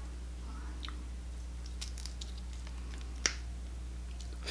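Faint clicks and crackles of cooked crab shell and meat being picked apart by hand, with one sharper click about three seconds in, over a steady low hum.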